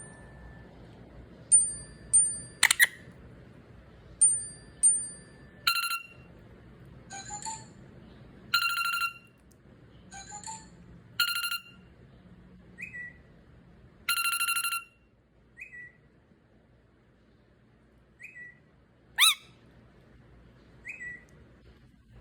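A series of separate short electronic alert tones and beeps, one after another with gaps between: paired high beeps first, then longer tones at several pitches, then short chirps and one quick rising sweep.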